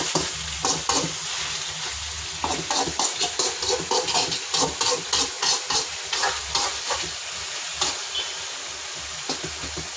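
Chicken pieces, sliced onions and potatoes sizzling in oil in a pan while a spatula stirs and scrapes them. There is a run of quick, regular scraping strokes from about two to seven seconds in.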